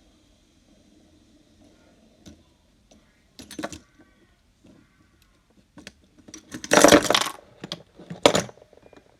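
A stack of fidget spinners clicking and rattling against each other and clattering down onto a hard surface, with small clicks first and two loud clatters about a second and a half apart near the end.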